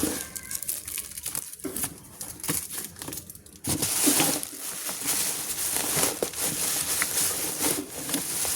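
Packaging crinkling and tearing as a box is opened, in irregular crackles that grow suddenly louder and denser a few seconds in.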